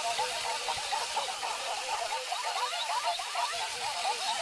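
Several Pikachu Aruku de Chu toys' high-pitched Pikachu voices chattering over one another, many short squeaky calls overlapping with no clear tune.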